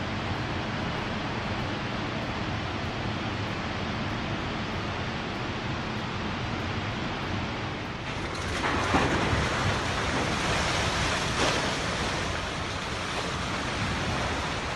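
Steady rushing noise of a landslide of mud and rock pouring down a wooded slope. About eight and a half seconds in, a louder crashing rumble of a building section collapsing takes over, with two sharp bangs in it.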